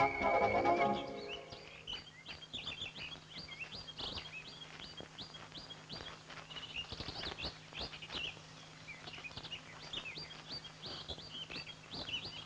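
Woodland birdsong: many short, quick chirps and whistles from birds, over a faint steady hum, after background music fades out in the first second or so.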